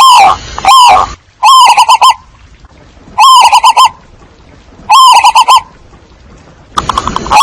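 Zebra doves cooing: loud, slightly distorted phrases of rapid staccato notes, repeating about every one and a half to two seconds. A lure recording used to call in a flock.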